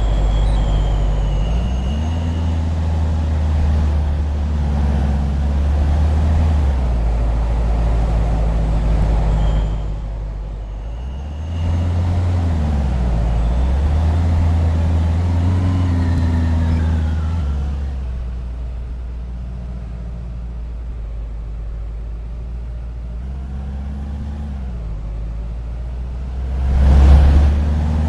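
A bus engine pulling away and accelerating, its pitch rising and falling several times through gear changes. A short, loud rush of sound comes near the end.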